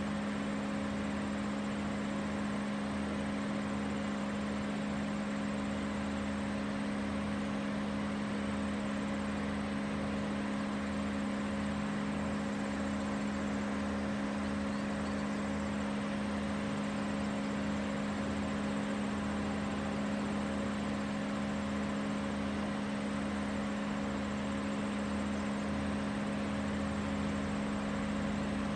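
Steady low mechanical hum that holds the same pitch throughout and never changes, with a faint high insect buzz above it.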